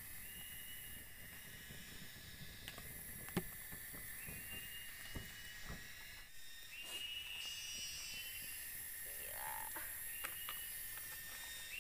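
Campfire embers being fanned with a plastic lid, giving soft puffs of air and a few sharp crackling pops, under steady high-pitched insect buzzing from the forest that starts and stops in long stretches.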